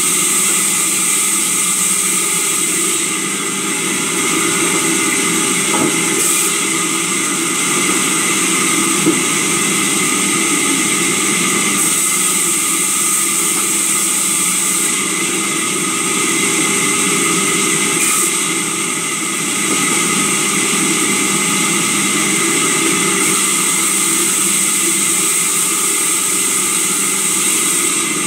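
Sawmill bench saw running steadily as timber is fed through it: a constant machine hum with a high whine that strengthens and eases every few seconds.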